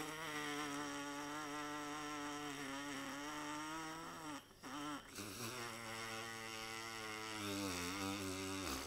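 Trumpet mouthpiece buzzed on its own as a gentle warm-up. A long steady buzzed tone breaks off about four and a half seconds in, then a lower buzzed tone follows and sags in pitch near the end.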